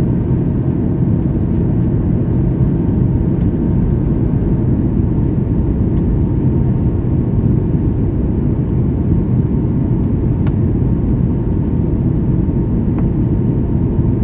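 Jet airliner cabin noise: a steady, even rumble of engines and airflow heard from inside the cabin, with a faint steady whine above it.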